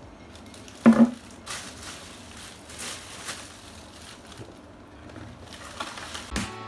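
A plastic carrier bag rustling and cardboard food boxes being handled on a table, with one short loud sound about a second in.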